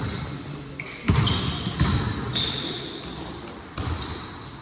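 A basketball bouncing on a hardwood court during a pickup game, a few dribbles, with short high-pitched squeaks of sneakers on the floor.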